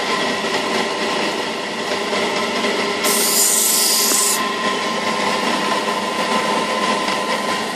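A knife blade pressed against the rim of a spinning finishing wheel, giving a harsh high hiss for about a second and a half starting about three seconds in. Under it the wheel and its shaft run with a steady hum and whine.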